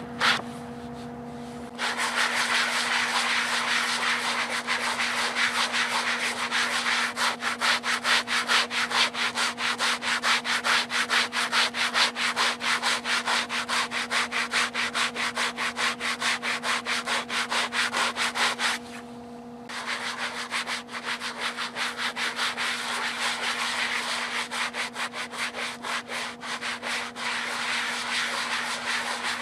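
Sanding block rubbed by hand back and forth over the face of a round wooden chopping block in quick, rhythmic strokes. The strokes start about two seconds in and stop for about a second roughly two-thirds of the way through.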